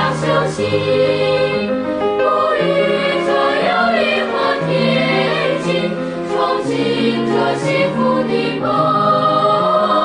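Background music with choir singing.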